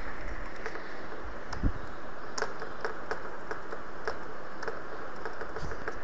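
Computer keyboard being typed on: irregular key clicks over a steady hiss, with one dull low thump about one and a half seconds in.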